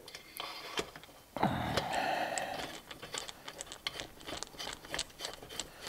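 Muffler screws being started and turned in with a screwdriver on a chainsaw. A scraping rasp lasts about a second and a half, then comes a run of light, irregular metallic clicks.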